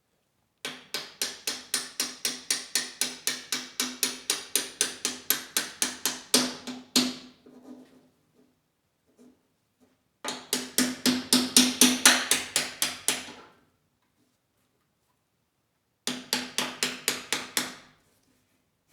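Hammer tapping a hinge pin through its bracket on a mower deck: quick, evenly spaced metallic taps, about five a second, each with a short ring. The taps come in three runs: a long one, another starting about ten seconds in, and a short one near the end.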